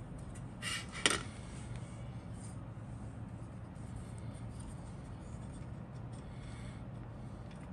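Plastic model-kit sprue being handled and flipped over on a cutting mat: a brief rustle, then one sharp plastic click about a second in, followed by light rubbing and tapping of the parts as it is turned and laid down. A low steady hum runs underneath.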